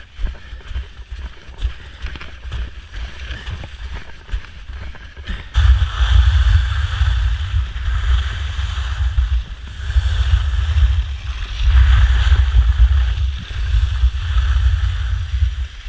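Skiing downhill on soft spring snow: wind buffets the camera microphone in a loud, gusty rumble and the skis hiss over the snow. It comes in suddenly about five and a half seconds in, after a quieter stretch with a few light clicks.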